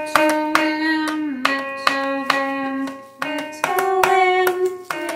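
A woman singing slow, held notes with a wavering pitch, over music with sharp, plucked-sounding notes.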